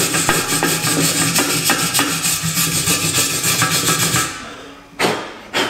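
Hand-held grinder grinding down the cracked weld on a thin steel exhaust pipe, a steady rough grinding noise that pulses as it is worked back and forth. It winds down about four seconds in, and two sharp knocks follow near the end.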